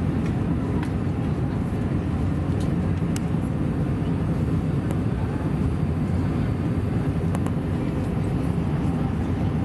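Steady low drone of engine and airflow noise heard inside the cabin of an Airbus A320 on approach, with a few faint ticks.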